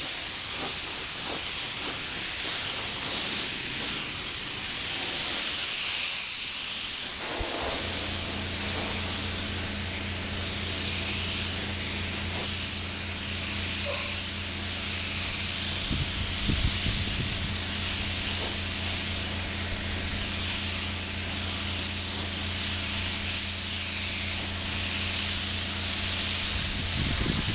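Air spray gun hissing steadily as it lays clear coat over decals on motorcycle body panels. About seven seconds in, a steady low hum joins the hiss.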